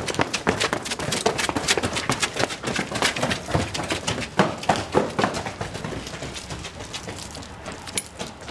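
Rapid footsteps of hard shoes running on a wet paved street, many sharp clicks a second, thinning out over the last couple of seconds.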